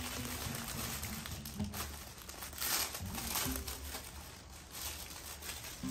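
Plastic or paper packaging crinkling and rustling in irregular bursts as a new t-shirt is unwrapped and handled.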